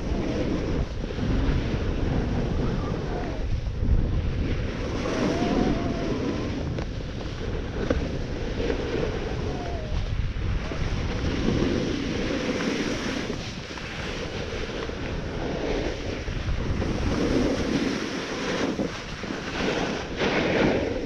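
Snowboard sliding down a groomed slope, its edges scraping and hissing over the snow in swells that rise and fall with each turn, under wind rushing across the camera's microphone.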